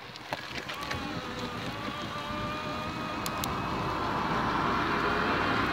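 Electric bicycle motor whining under assist, the whine edging up in pitch and growing louder as the bike picks up speed, over wind and tyre noise.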